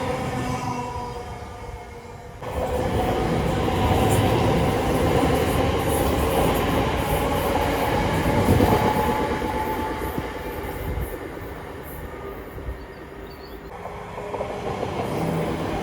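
Train on the line, first with a steady multi-pitched whine, then with loud rushing wheel-and-rail noise from about two and a half seconds in. The sound changes abruptly again near the end.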